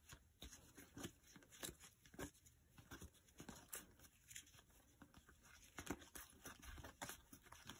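Near silence with faint, scattered soft clicks and rustles of glossy game cards being slid apart and thumbed through in the hands.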